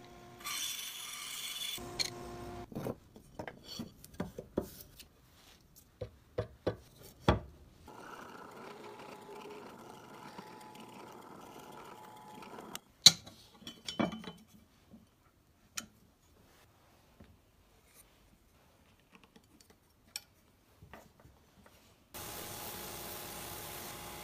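A string of short workshop tool clips: a bandsaw briefly running at the start, then scattered clicks and knocks, a drill press running for a few seconds and a very loud sharp knock, a quiet stretch with odd clicks, and a Delta belt/disc sander running steadily near the end as wooden handle scales are held against the belt.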